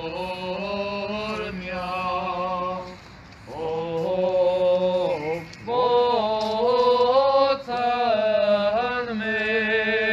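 Armenian church chant: voices singing a liturgical hymn in held phrases of one to two seconds, with brief breaks between them and a steady low note under the melody through the first half.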